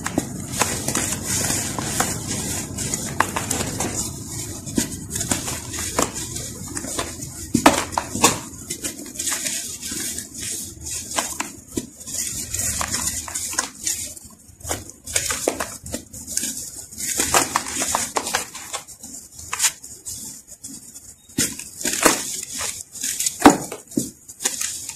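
Hard chunks of dry, packed earthy sand crushed and crumbled between fingers: irregular crisp crackles and crunches as the chunks break, over a constant high sandy hiss.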